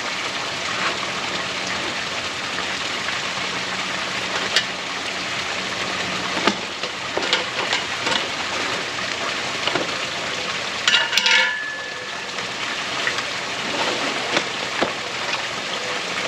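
A folding camp cot being unpacked and unfolded: scattered clicks and knocks from its frame and fabric, with a louder scraping cluster about eleven seconds in, over a steady hiss.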